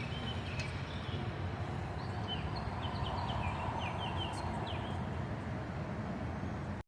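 Birds chirping in quick short notes over a steady low rumble; the sound cuts off abruptly near the end.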